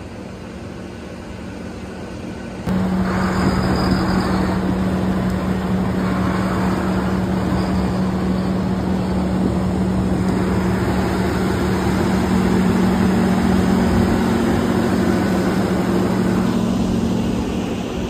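Case IH Quadtrac tractor's diesel engine running steadily, a loud constant drone that comes in suddenly about three seconds in; before that a quieter engine hum.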